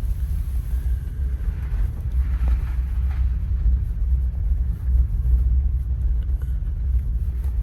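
Low, steady road and engine rumble inside the cabin of a 2012 Toyota Sienna minivan on the move, with a few faint knocks.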